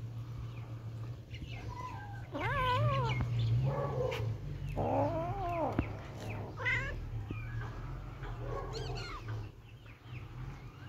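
Kittens meowing: several drawn-out, wavering calls a couple of seconds apart, over a low steady hum.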